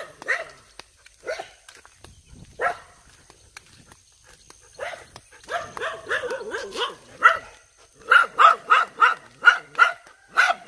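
Dogs barking: a few scattered barks, then a rapid run of barks, about three a second, in the last few seconds.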